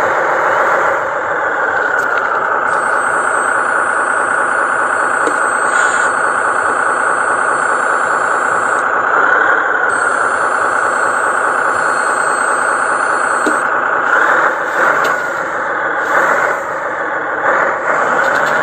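FAW dump truck running steadily while stuck with its wheels sunk in mud: a dense, even engine drone, with a thin high whine over it for several seconds at a time. The pitch dips and rises briefly now and then, and a few knocks and level dips come near the end.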